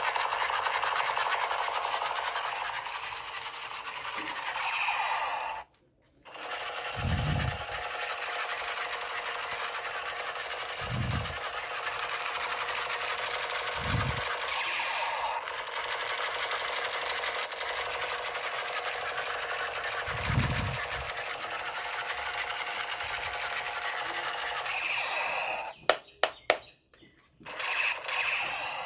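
Battery-powered toy gun running with a steady mechanical buzzing, its motor and sound effects going for long stretches. The buzzing breaks off briefly about six seconds in, and a few dull low thumps and some sharp clicks come near the end.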